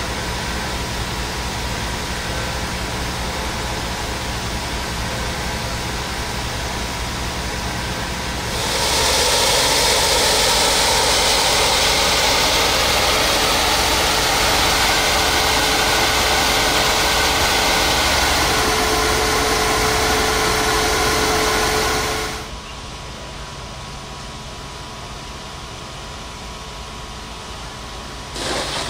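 An engine running steadily with a low hum. About eight seconds in, a loud even rushing hiss of a high-pressure fire-fighting water jet takes over for some fourteen seconds, then drops back to the quieter engine hum.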